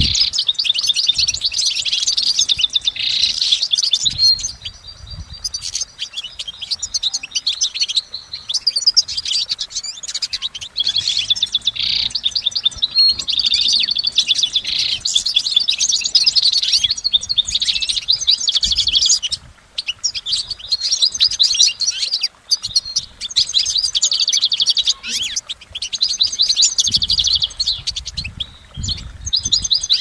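European goldfinch singing its long, fast twittering song of rapid trills and chirps. It runs almost without a stop, with a few short breaks in the second half.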